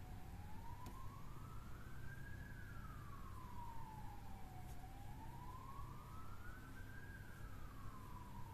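A faint siren wailing, its pitch slowly rising and falling about twice, over a steady low rumble.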